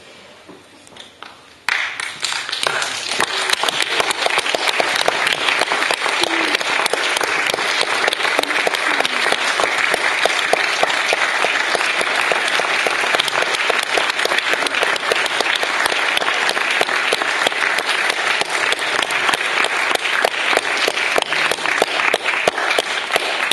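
Audience applause: many people clapping at once. It starts suddenly about two seconds in and keeps up densely and steadily.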